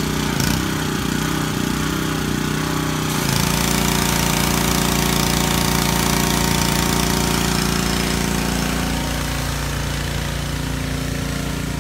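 Small petrol engine of a pressure washer running steadily. About three seconds in, the hiss of the water spray hitting the ground joins it and it gets a little louder.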